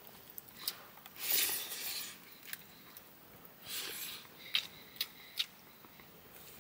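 Kitchen utensils scraping and clicking: two scrapes of about a second each, then a few sharp clicks.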